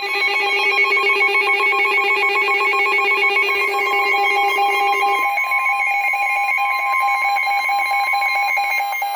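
Electronic weather-radio alert tones: for about five seconds, several steady pitches sound together with a rapid flutter. Then a single steady tone is left, the NOAA Weather Radio 1050 Hz warning alarm tone that precedes a flash flood warning.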